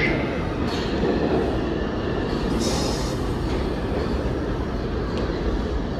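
New York City subway train running through the station: a steady rumble of wheels on rail, with a brief high hiss about two and a half seconds in.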